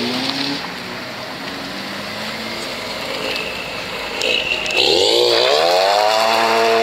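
Car engine revving: after a few seconds of background traffic noise, the revs climb sharply about five seconds in and hold high as the car pulls away.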